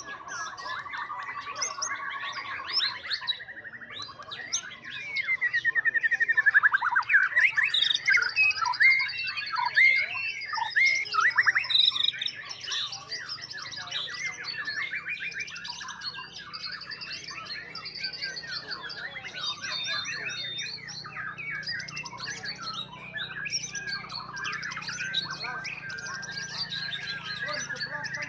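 Several caged white-rumped shamas singing over one another: a dense, varied mix of clear whistles, fast repeated trills and harsh chattering notes. It is loudest a few seconds in, where rapid trills pile up.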